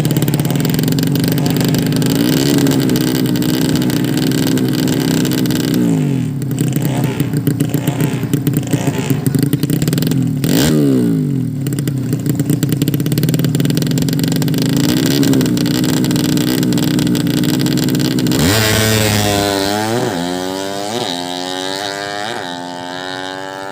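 Drag-racing motorcycle engine running at a fast idle, with a throttle blip every few seconds that rises and falls in pitch. From about three quarters of the way in it is revved repeatedly in quick rising bursts.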